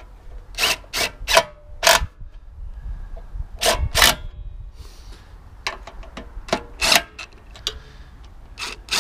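Cordless DeWalt impact driver run in short bursts to drive bolts into a lawnmower's plastic engine cover, among about a dozen sharp, irregular clicks and knocks of metal tools and bolts.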